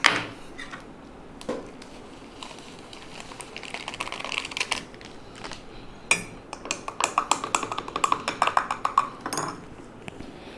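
Tableware being handled: a sharp clink about six seconds in, then a rapid run of light clinking ticks for about three seconds, with soft rustling before.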